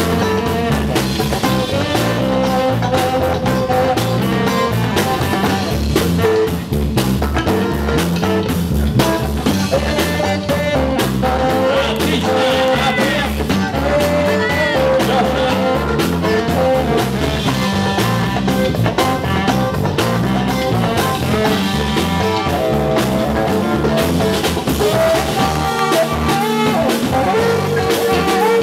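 Live funk band playing a steady groove, with electric guitar over a drum kit.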